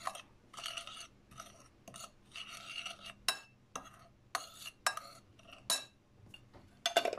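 Metal spoon stirring dry sugar, powdered sugar and cinnamon in a bowl: repeated scraping strokes with sharp clinks of the spoon against the bowl, stopping about six seconds in.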